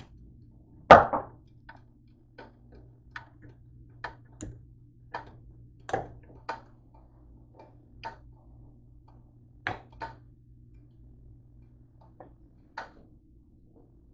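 A string of light knocks and clicks as kitchen items, including a plastic mustard bottle, are handled and set down on a counter, the loudest knock about a second in. A steady low hum runs underneath.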